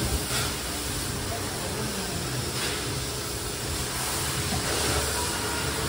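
Pressure washer spraying water against a car's underside: a steady hissing spray.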